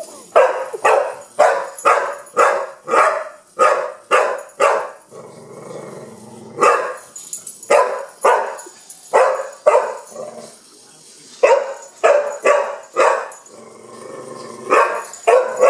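Young pit bull barking at a wind-up toy bug in quick runs of about two barks a second, with a low growl between runs about five seconds in and again near the end.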